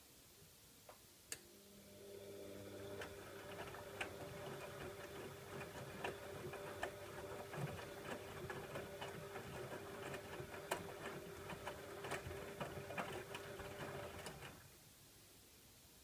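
Bosch Maxx WFO3274EX front-loading washing machine turning its drum during the wash phase of a 40°C coloured wash. The motor starts about two seconds in with a steady hum and whine while the wet laundry tumbles with many sharp clicks and sloshing, then stops shortly before the end as the drum pauses between turns.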